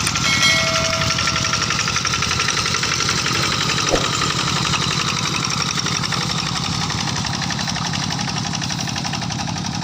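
Single-cylinder Kubota RD85 diesel of a TL800 hand tractor running steadily, with a fast, even knock of firing strokes. A sharp click is heard about four seconds in.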